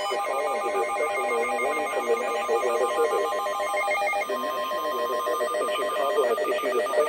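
Emergency alert audio: a rapidly pulsing, trilling electronic tone much like a telephone ring, with a steady single high tone sounding for about two seconds past the middle and a voice underneath.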